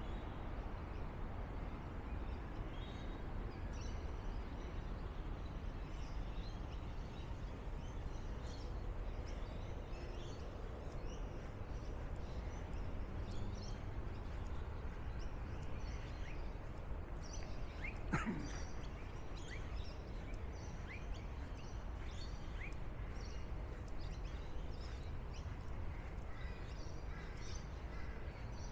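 Garden ambience: a steady low background rumble with many small birds chirping, more busily in the second half. About two-thirds of the way through comes one louder sliding call, followed by a few short rising whistles.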